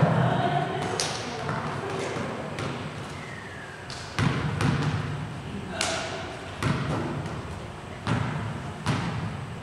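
A volleyball being struck and bouncing on a gym floor: a string of sharp smacks, roughly one every half second to second, each ringing on in the echoing hall.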